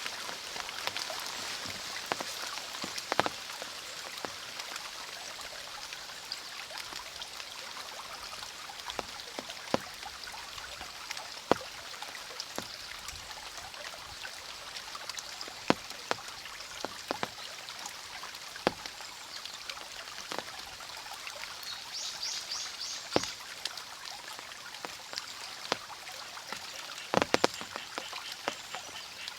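Rain falling with a steady hiss over flowing stream water, with scattered sharp drips and drops. About three-quarters of the way through, a short run of rapid high-pitched ticks sounds, like a small animal's call.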